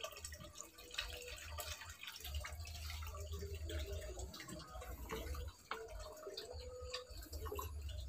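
Faint handling sounds as a dove chick is set back onto a greaseproof-paper-lined nest tray in a cage: scattered light clicks and paper rustles over a low, uneven rumble.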